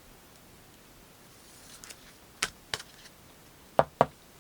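Trading cards being handled on a table: a light rustle, two small clicks about halfway through, then two sharper taps in quick succession near the end.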